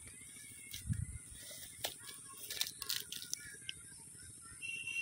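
Faint rustling and crackling of leaves and dry leaf litter as a hand brushes through low plants and feet step on the ground, with a soft thump about a second in and a cluster of short sharp crackles in the middle.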